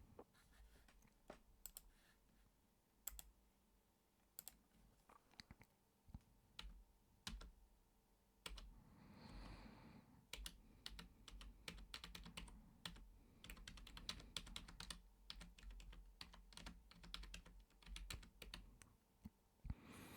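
Computer keyboard being typed on, a quiet, irregular run of key clicks.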